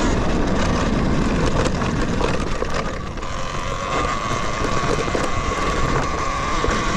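Talaria Sting electric dirt bike's motor whining steadily under throttle on a climb, over wind buffeting the microphone and scattered knocks from the rough trail. The whine fades for about a second around three seconds in, then comes back.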